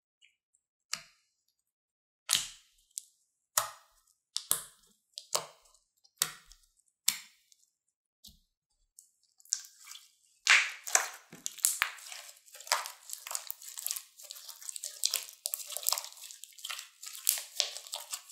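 Hand-kneaded slime with light clay pressed into it. First comes a string of separate sticky squishes and pops about once a second as the slime is folded over the clay. From about ten seconds in, the squeezing and mixing makes a continuous run of squishing and crackling.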